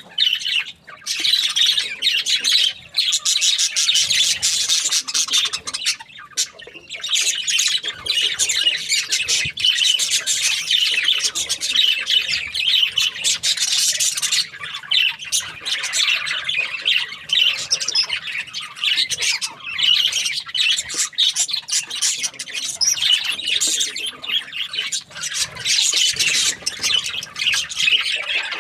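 A flock of budgerigars chattering and squawking continuously, many rapid overlapping high-pitched chirps and screechy calls.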